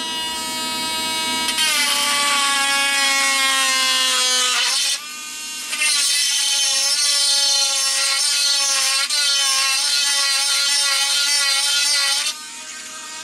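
Small handheld rotary tool with a drill bit boring a hole through the plastic hull of a model ship. Its whine drops in pitch as the bit bites into the plastic, dips briefly about five seconds in, then runs again with a wavering pitch and stops about a second before the end.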